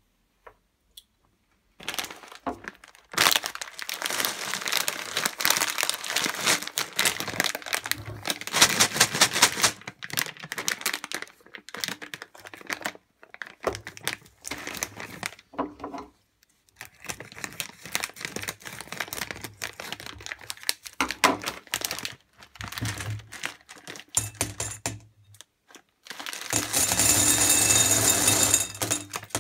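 A plastic candy bag crinkling as it is handled, in stretches with short pauses. Near the end, sugar-coated chocolate peanuts pour from the bag into a glass bowl in a steady rattling stream lasting about three seconds.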